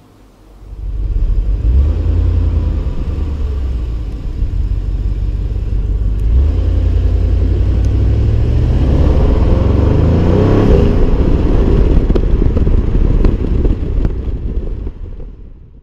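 Audi RS6's 4.0-litre twin-turbo V8 driving hard: the engine note comes in about a second in, dips briefly around four seconds, then climbs in pitch as the car accelerates and stays loud before fading out near the end.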